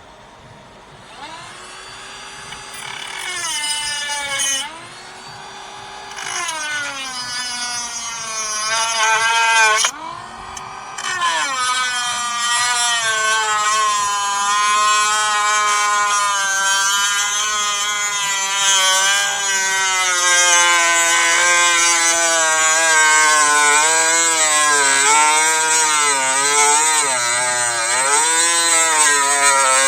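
Dremel rotary tool with a cut-off wheel grinding through a break-off security rivet on a steering-column ignition collar. It spins up and stops a few times in the first ten seconds, then runs continuously, its pitch dipping and recovering as the wheel bites into the metal.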